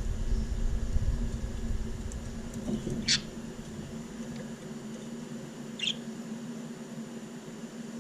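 Budgerigars giving two short, high chirps, about three seconds apart, over a steady low hum. A low rumble fills the first few seconds.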